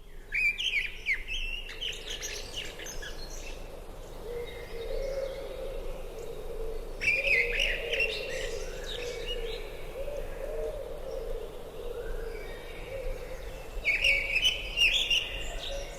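Birds chirping and singing in three bursts: about a second in, about seven seconds in, and near the end. A low wavering tone runs underneath through the middle.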